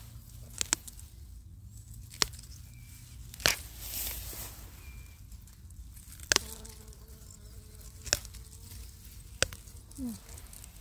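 Dandelion stems snapping as they are picked by hand: a series of sharp snaps, about seven in all, one every one to three seconds.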